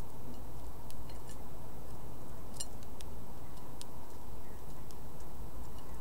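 Small bird pecking at mixed birdseed in a terracotta saucer: irregular sharp little clicks of its bill on seeds and the dish, with a short cluster of them about halfway through. A steady low rumble of background noise runs underneath and is the loudest part.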